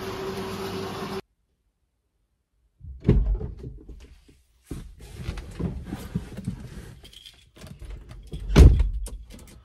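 Getting into a Ford EcoSport: knocks and rustling as someone settles into the seat, then a car door shutting with a heavy thud about nine seconds in. The first second is a steady hum that cuts off abruptly.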